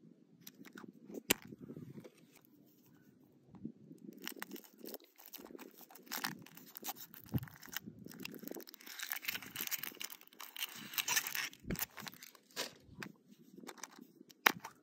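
Kinder Surprise egg's foil wrapper crinkling and tearing as it is peeled off the chocolate, with the yellow plastic toy capsule clicking as it is handled. The crinkling is densest in the middle, and a few single sharp clicks stand out, one near the start and one near the end.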